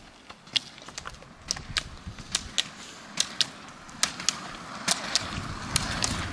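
Roller skis skating on asphalt: sharp, irregular clicks of ski-pole tips planting on the road, over the rolling rumble of the wheels, which grows louder near the end as a skier passes close.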